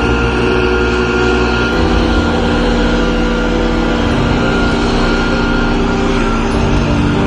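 Gasoline backpack leaf blower engine running steadily, with the rush of air from its blower tube.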